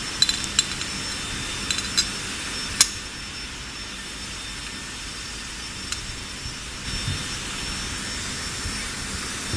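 Steady hum and hiss of a silicone-edge glass lid molding press running, with a few sharp metallic clicks in the first three seconds as parts are handled on its steel mold.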